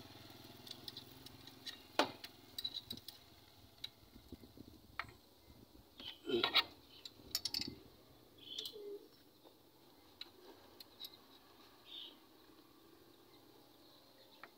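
Sparse light clicks and metal clinks of hand tools and exhaust parts being handled, with a busier cluster of taps about six to eight seconds in.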